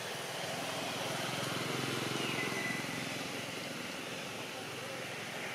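Steady outdoor background noise, a little louder in the first half, with one brief high squeak a little over two seconds in.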